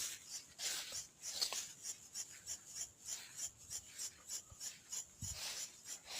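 An irregular series of scraping, rustling strokes through dry brush and weeds, typical of overgrown scrub being cleared by hand.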